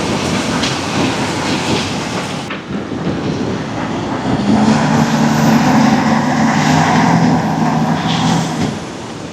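Heavy diesel quarry machinery working: a dense, clattering rumble, then after an abrupt change a louder diesel engine note comes in about four and a half seconds in and holds under load until near the end.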